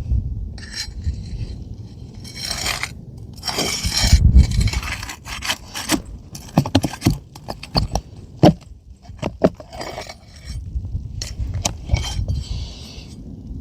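Asphalt roof shingles being worked loose with a metal pry bar to free their nails: irregular scraping under the shingles and sharp metallic clicks and clinks.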